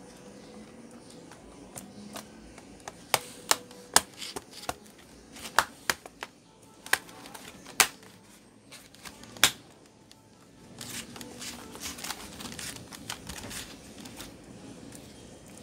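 Sharp plastic clicks, spaced unevenly, as hands press down on the ASUS C202S Chromebook's newly fitted keyboard deck to seat it. A softer, quicker run of clicks and rubbing follows about eleven seconds in, as the deck's front corner is pressed in.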